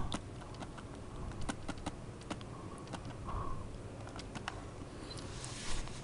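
Stylus tapping and sliding on a pen tablet during handwriting: a string of faint, irregular clicks, with a brief soft rush of noise near the end.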